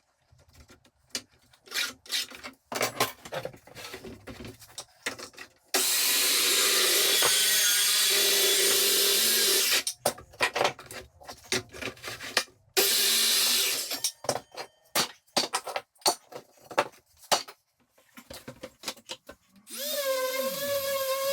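A power tool working wood runs steadily twice, for about four seconds and then for about a second, between clatters and knocks of wood being handled. Music comes in near the end.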